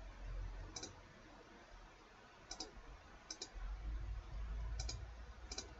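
Computer mouse button clicking about five times, most clicks heard as quick close pairs, over a faint low rumble.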